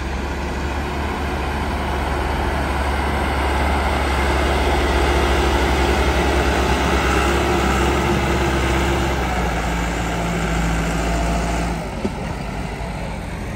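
Farm tractor's diesel engine running under load as its front blade pushes sand. The engine is loudest in the middle and eases off about twelve seconds in.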